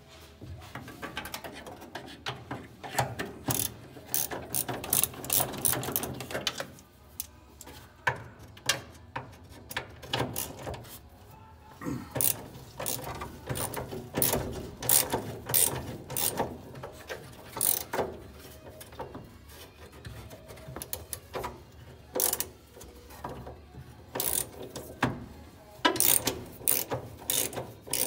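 Ratchet wrench clicking in bursts of quick strokes with short pauses between, loosening the nuts that hold the steering column to the dash.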